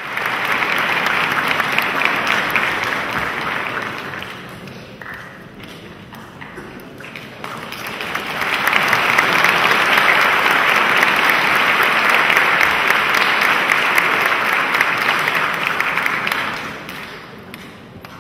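Audience applauding in a hall. The clapping eases off after about four seconds, swells again about eight seconds in, and dies away near the end.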